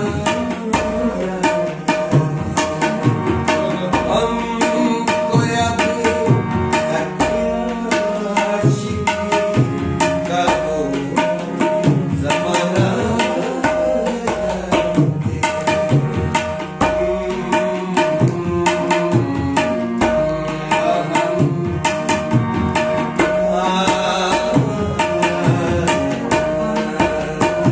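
Tabla playing a steady, fast rhythm over harmonium and a plucked string instrument, as live ghazal accompaniment.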